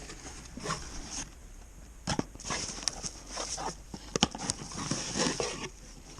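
A flock of snow geese calling overhead: many overlapping short, high yelps that come and go in bunches, with a few sharp clicks among them.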